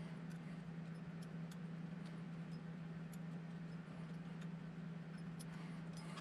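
Steady low hum with a few faint, light clicks scattered through it, as small parts and tools are handled while working on a 1/24-scale RC crawler's axle.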